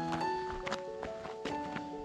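Instrumental background music: a melody of held notes, with a few soft knocks about a second apart.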